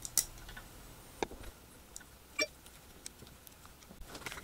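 A few faint, scattered clicks and taps of hands handling a metal lens mount and camera body, the sharpest just after the start.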